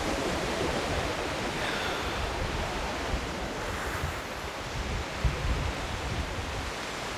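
Surf washing onto a sandy beach, a steady rush, with wind buffeting the microphone in low gusts, strongest a little after five seconds in.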